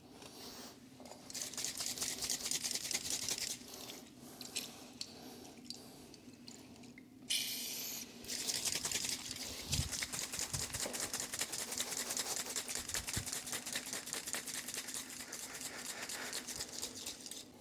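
A stiff brush scrubbing a motorcycle drive chain in fast strokes, in two spells, with a short hiss at about seven seconds in.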